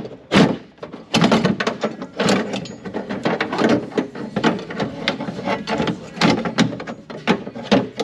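Metal window regulator being worked by hand into a car door's inner panel, clattering and scraping against the door sheet metal in a busy, irregular run of knocks and rattles.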